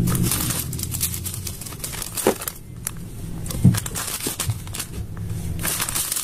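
Crinkling, crackling handling noise made up of many quick sharp clicks, with a couple of louder pops about two and three and a half seconds in.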